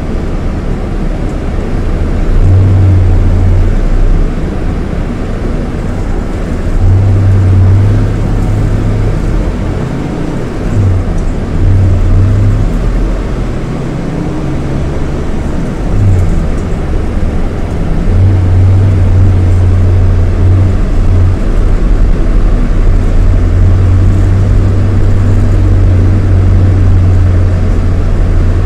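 Scania K230IB bus's diesel engine (Scania DC9) running under load: a loud low drone that pulls harder in bouts of a few seconds and drops back in between, as the bus accelerates and eases off.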